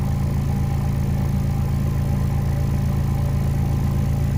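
Small subwoofer driven by a generic PA-60A car audio plate amplifier, playing a steady, sustained low bass note with a buzzy edge, its cone moving hard.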